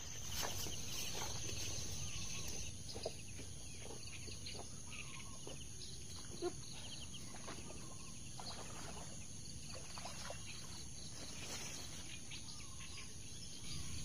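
Outdoor rural ambience: birds chirping here and there over a steady high insect whine, part of which stops about three seconds in, with faint rustling.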